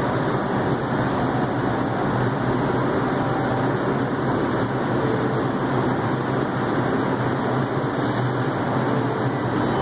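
Steady rumbling hum of an underground subway station with an R142 train standing at the platform, its on-board equipment running.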